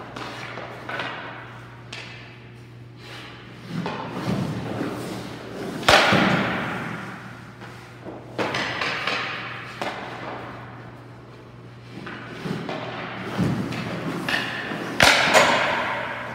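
Hockey skates scraping and carving on ice in repeated strokes, with sharp puck thuds, the loudest about six seconds in and near the end, over a steady low hum.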